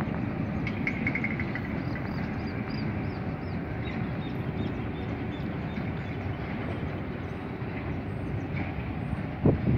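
Ballast hopper wagons of a work train rolling away on the track: a steady rumble of steel wheels on rail that slowly fades. A couple of low thumps near the end.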